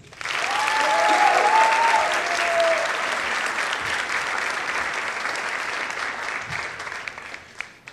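Audience applauding, loudest a second or two in and slowly fading; a voice cheers briefly in the first few seconds.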